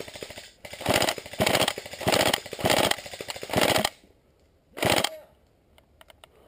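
Airsoft rifle firing six short full-auto bursts, each a quick rattle of shots, the last after a pause of about a second.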